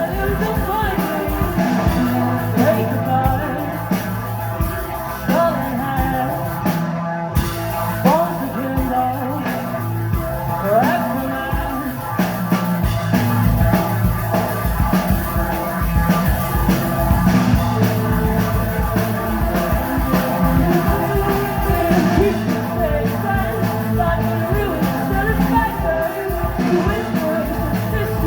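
Rock band playing live, with a drum kit, sustained chords and singing. The band breaks off briefly about seven seconds in, then comes back in on a loud hit.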